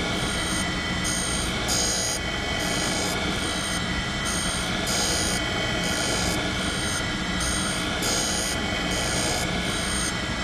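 Surface grinder running dry: the motor's steady hum and the wheel grinding hardened steel, with a high hiss that comes and goes at a regular pace as the reciprocating table carries the work past the wheel, which is just touching off.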